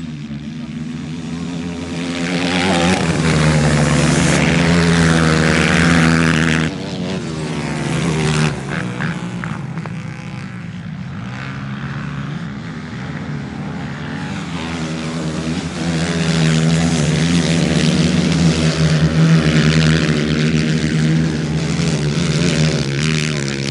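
A pack of racing ATVs with engines revving and changing pitch as they power around a dirt track. The sound swells loud as the machines pass close, first in the opening seconds, where it cuts off sharply about seven seconds in, and again through the last third.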